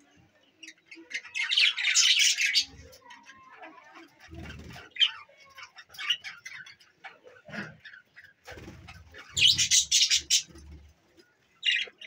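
Budgerigars chirping and squawking in two loud bursts of chatter, one about a second in and one near the end, with scattered chirps and a few low thuds between.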